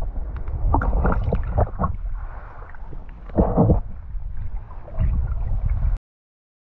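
Water sloshing and splashing over a steady low rumble of wind on the microphone, with a few louder splashes; the sound cuts off abruptly about six seconds in.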